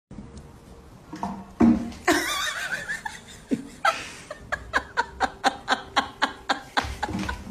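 A person laughing in a quick run of repeated bursts, about three a second, through the second half. Before it, about two seconds in, comes a loud, wavering vocal cry.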